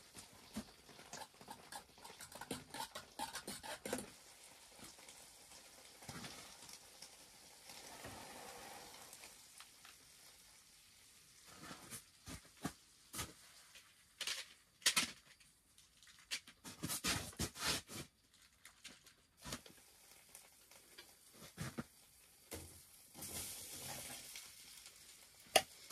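Food sizzling in a pan on a camp stove, with a spoon stirring in a metal pot and scattered clicks and knocks of utensils and cookware, a cluster of louder knocks about midway.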